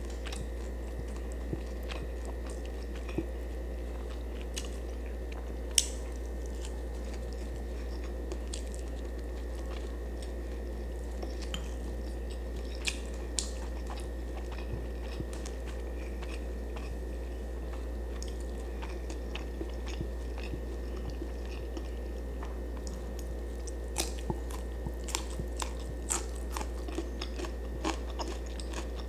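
Close-up chewing and crunching of food, including bites of crisp cucumber slices, with scattered sharp crunches that come more often near the end, over a steady low electrical hum.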